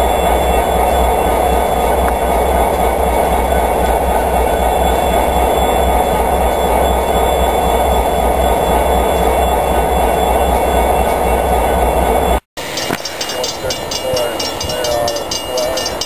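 Freight train led by two EMD SD60M diesel locomotives passing, engines and wheels rumbling steadily. About twelve seconds in it cuts off suddenly to a grade-crossing warning bell ringing in an even rhythm, about three to four strokes a second.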